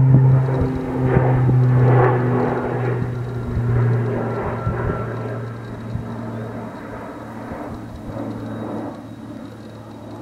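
Twin-engine firefighting airplane flying low overhead: a steady propeller-engine drone that fades as the plane moves away.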